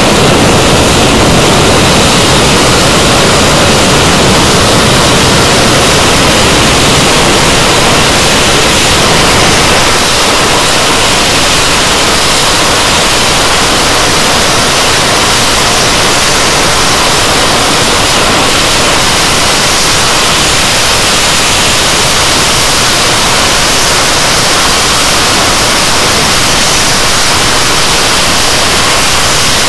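English Electric Lightning F.6's twin Rolls-Royce Avon turbojets running at high power on a ground run, a very loud, steady rushing noise. It eases slightly about ten seconds in, then holds.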